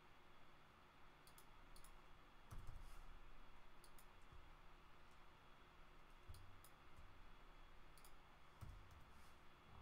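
Faint computer mouse clicks, scattered and often in quick pairs, with a few soft low thumps, over a steady faint room hum.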